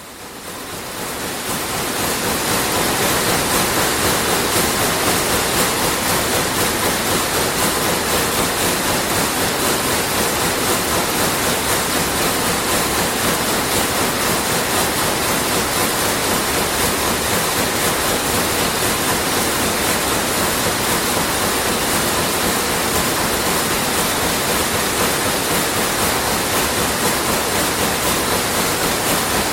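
Sulzer weaving looms running at full speed, a dense, steady mechanical clatter with a fast, even beat. It fades in over the first couple of seconds.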